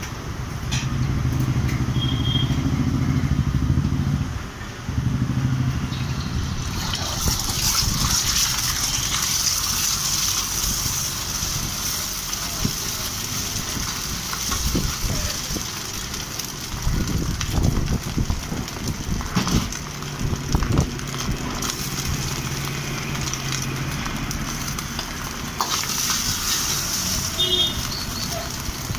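Street traffic: a motor vehicle engine runs for the first six seconds or so, with short horn toots about two seconds in and twice near the end. From about seven seconds in a steady hiss sets in and continues.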